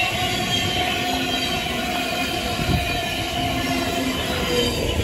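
Thameslink Class 700 electric multiple unit passing close by: a steady rumble of wheels on rail with a steady whine running through it, and a single knock a little past the middle.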